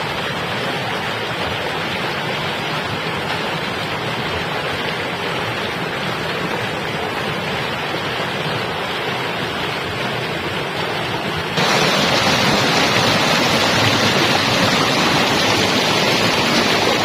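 Steady rushing of water, like a waterfall, with no distinct clicks. About two-thirds of the way through it jumps suddenly louder and brighter, as at a cut.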